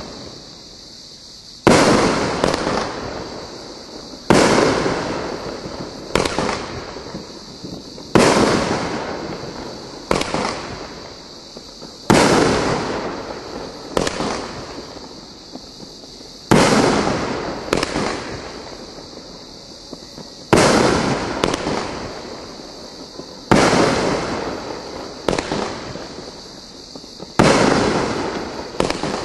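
Consumer firework cakes firing aerial shots: about ten loud bangs spaced two to four seconds apart, each fading away over a couple of seconds, with smaller sharp reports in between.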